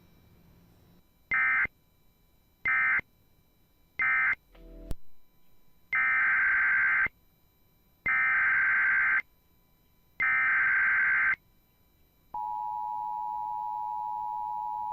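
Emergency Alert System tones: three short bursts of SAME digital data sounding the end-of-message code, then a short low noise ending in a click about five seconds in. Next come three longer bursts of SAME header data opening a new alert, and from about twelve seconds in the steady EAS two-tone attention signal.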